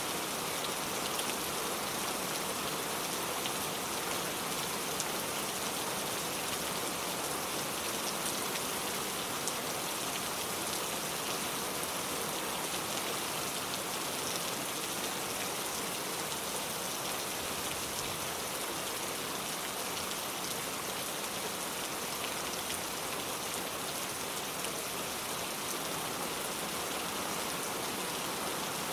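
Steady rainfall, a continuous hiss with many fine drop ticks.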